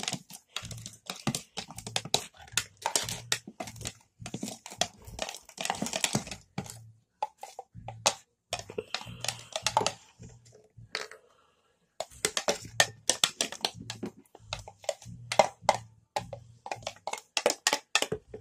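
Metal spoon stirring glue and borax activator in a plastic cup, making quick, irregular clicks and scrapes as the mixture turns into slime, with a brief pause about two-thirds of the way through.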